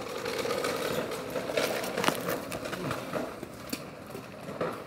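Steady motor hum from a child's ride-on electric go-kart, fading as it moves away, with a few sharp crackles.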